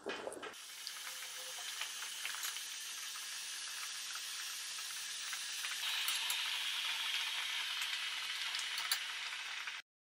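Water at a rolling boil in a stainless steel pot with a whole cabbage blanching in it: a steady bubbling hiss, a little louder in the second half, with a few light clicks. It cuts off suddenly just before the end.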